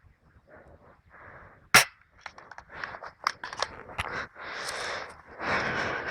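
A single sharp airsoft gun shot about two seconds in, the loudest sound, with rustling and scattered small clicks and knocks around it.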